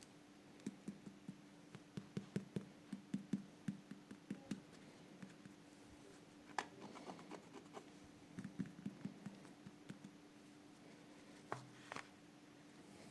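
Small hard toy pieces being handled: a run of light clicks and taps in clusters, busiest in the first few seconds, over a faint steady hum.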